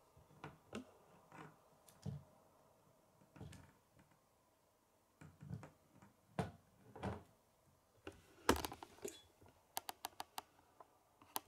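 Scattered clicks and knocks of a plastic K'nex model being handled against a wooden table, with a louder knock about two-thirds of the way through and then a quick run of about half a dozen sharp clicks.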